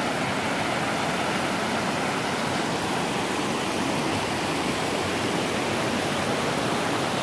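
Waterfall rushing over rock cascades: a steady, even roar of white water.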